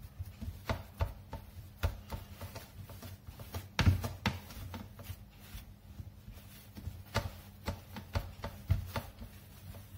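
Fresh chhena being kneaded with the heel of the hand on a ceramic dinner plate, working it into a smooth dough: irregular light knocks and taps of hand and plate, loudest about four seconds in.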